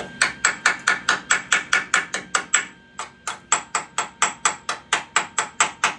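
Small tap hammer chipping flux slag off a fresh weld: quick, evenly spaced metallic taps, about four or five a second, with a brief pause about halfway through.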